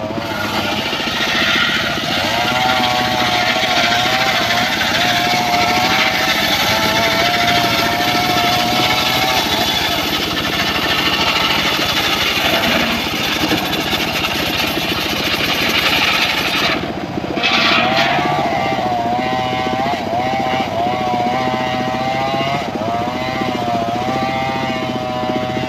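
Homemade circular sawmill running and sawing through an old mahogany log, a steady mechanical drone with a tone that wavers up and down as the blade works through the wood.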